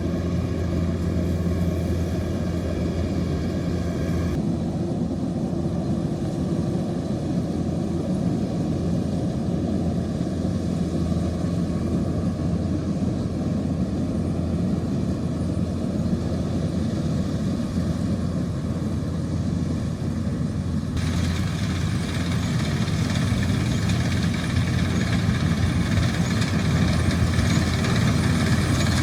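Kubota rice combine harvester's diesel engine running steadily under working load with a steady low hum. About four seconds in the sound turns duller, about two-thirds through it turns brighter again, and it grows louder near the end.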